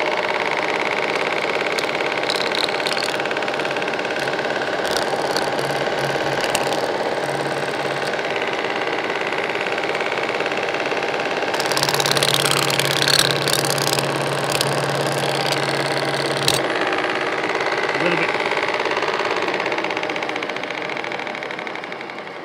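Pullmax reciprocating sheet-metal machine running steadily while a short steel strip is fed through its gutter-forming tool to press a gutter profile. The sound grows louder and harsher for several seconds midway, then fades near the end.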